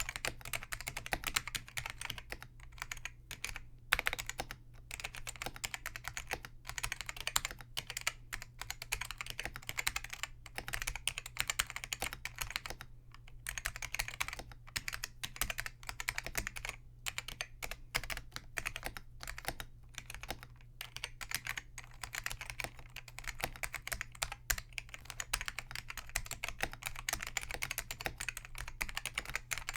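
Continuous typing on a Focus FK-2001 keyboard with linearized Hua-Jie T1 Alps-clone switches (click leaves removed): a rapid, uneven stream of key presses with brief pauses, each stroke still carrying a firm tactile bump from the slider pushing the contact leaf.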